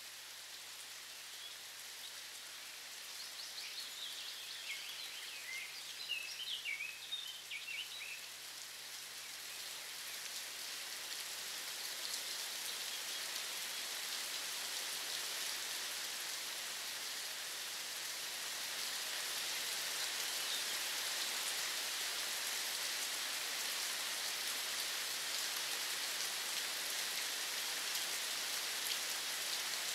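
Steady rain falling, growing louder over the first dozen seconds, with a cluster of brief high chirps between about three and eight seconds in.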